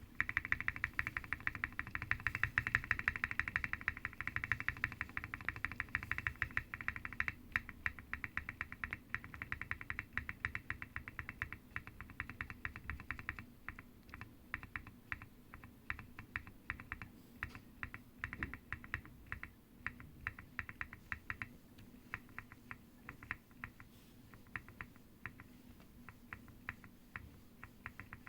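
Spacebar of a QK65 mechanical keyboard (POM plate, full foam, TX Rev. 3 stabilizers lubed with 205g0 and Krytox XHT-BDZ) pressed over and over: a fast, dense run of presses for the first several seconds, then slower, spaced presses with short quick runs in between.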